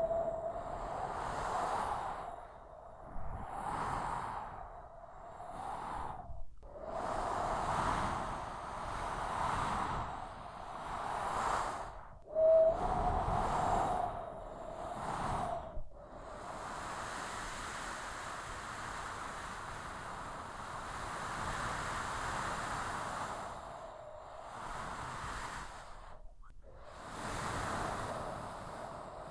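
Strong desert wind of a sandstorm blowing in gusts that swell and fade every couple of seconds, with a brief high whistle about twelve seconds in. Around the middle it settles into a steadier, continuous blow, then begins gusting again near the end.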